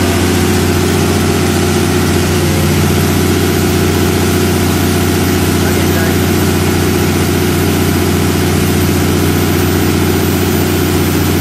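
Cummins 6CTA turbocharged inline-six diesel generator set running steadily at its governed 1800 rpm, producing 60 Hz while carrying an electrical load of around 120 kW.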